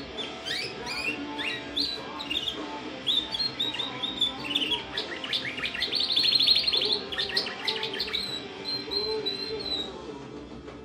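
Female domestic canary singing: a varied run of short chirps and rising notes, a fast trill in the middle, and a held whistled note near the end before she stops.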